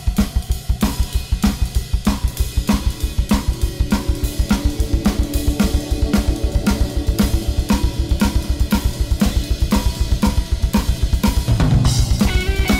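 Music: a drum kit playing a fast, steady beat of kick, snare, hi-hat and cymbals over a pulsing low bass line. Shortly before the end, new held tones come in on top.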